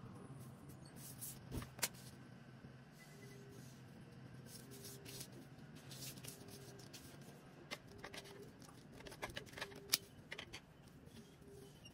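Faint handling sounds of pattern drafting on paper: scattered light clicks and taps as a tape measure, marker and plastic pattern ruler are moved and set down on the paper, sharpest about two seconds in and near the end, with a cluster of taps shortly before.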